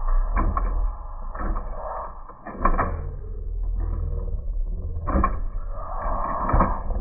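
Small electric servo motors in a model 1962 Chevrolet Impala lowrider whirring in short runs as they raise and lower the car's suspension, with several sharp clicks and knocks as the body lifts and drops back.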